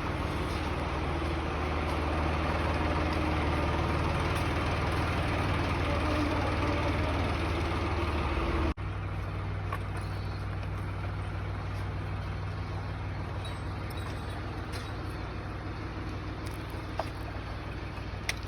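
A steady low mechanical hum under a background of noise. About nine seconds in it cuts off abruptly, then carries on more quietly.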